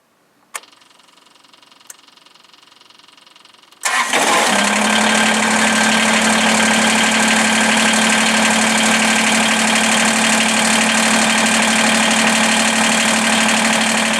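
Kubota BX compact tractor's three-cylinder diesel engine started after its oil and filter change. Two clicks and a faint hum come first. The engine catches about four seconds in and runs steadily.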